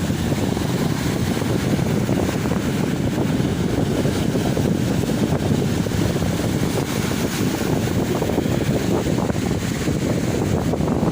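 Sea waves washing onto a beach, with wind rumbling on the microphone: a steady low rush with no single wave crash standing out.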